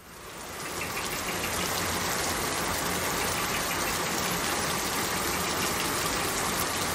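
Steady rain falling, an even hiss that fades in over the first second.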